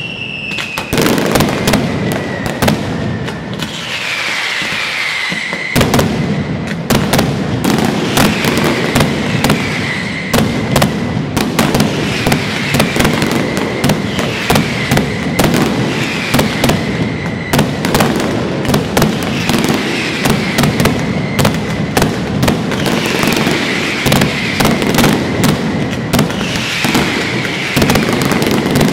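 Mascletà: strings of firecrackers going off in a continuous rapid barrage of loud bangs, growing denser and heavier about six seconds in. Falling whistles from whistling fireworks cut through every couple of seconds.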